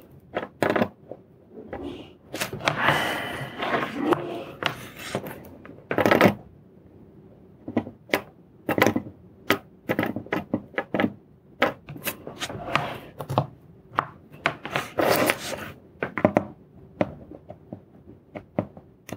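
Irregular light clicks and knocks of a soldering iron and a small circuit board against a wooden tabletop while a surface-mount chip's pins are soldered, with a few louder knocks.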